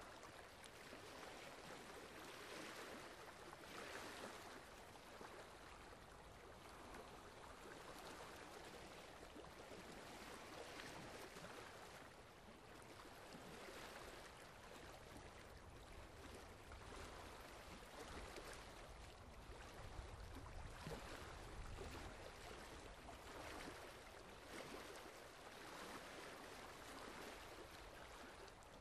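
Very faint, steady trickling water, swelling and fading every few seconds.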